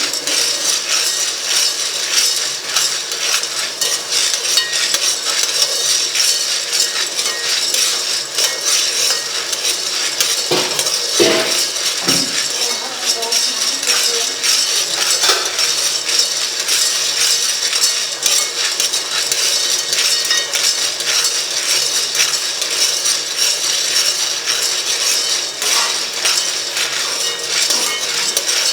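Metal utensils clinking and scraping against pots and dishes during cooking, with a few louder knocks a little before the middle.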